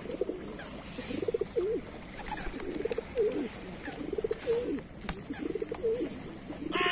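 Feral rock pigeons cooing in a run of low, warbling, pulsing coos, one phrase after another. There is a single sharp click about five seconds in, and a louder call breaks in at the very end.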